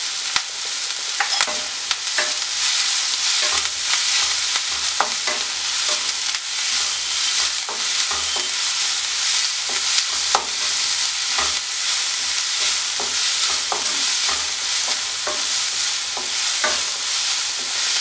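Sliced onions, green chillies, ginger and garlic sizzling in hot oil in a non-stick wok while a spatula stirs them, with scattered scrapes and taps of the spatula against the pan. The onions are being sautéed until they soften.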